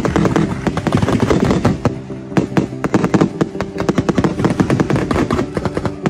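Fireworks crackling in a dense, rapid run of sharp cracks and pops, thickest in the first two seconds, with music playing steadily underneath.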